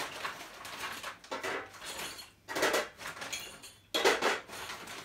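Loose metal hardware, the tool chest's caster wheels and keys, clattering and rattling in several short bursts as it is handled and unpacked.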